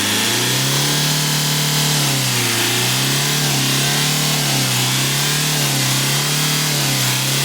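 Toyota Hiace 2.5 L D4D diesel engine revved hard and held at high revs, its note dipping slightly and climbing back a few times. It runs smoothly, the vibration cured after the injector lines were bled of air.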